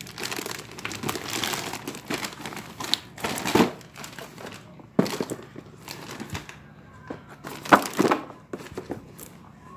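White paper parcel wrapping crinkling and rustling as a cardboard box is pulled out of it and handled. There are irregular bursts, the loudest about three and a half and eight seconds in.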